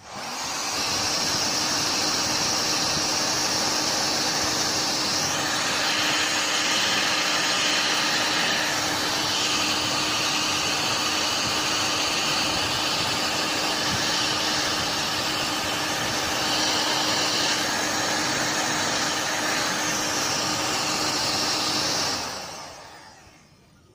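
Parkside heat gun blowing hot air steadily, a loud whooshing with a faint hum, melting a small piece of plastic into a hole in a plastic car bumper. It is switched off about 22 seconds in and winds down.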